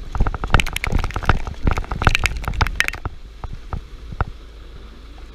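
Crackling clatter of irregular sharp taps and knocks, dense for about three seconds and then only a few scattered ones, over a steady low rumble.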